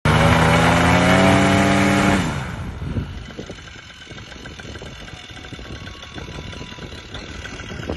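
Vittorazi Moster 185 single-cylinder two-stroke paramotor engine run up at high throttle, its pitch creeping up, then throttled back about two seconds in and running much quieter at low revs.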